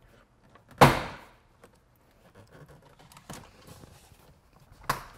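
Plastic retaining clips of a MINI Cooper door trim panel being pried free by hand: one loud snap about a second in, faint clicks and creaks, then another sharp click near the end. These are tight clips that resist before letting go.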